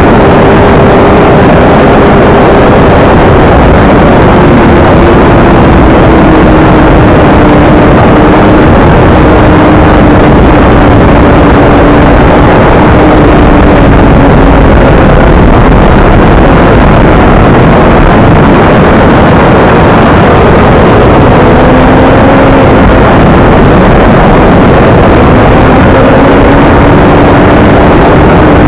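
Honda CBR600RR's inline-four engine running at road speed, heard from a camera mounted on the bike under a heavy, steady rush of wind noise. The engine note falls slowly over the first dozen seconds, then rises and dips again as the rider works through the bends.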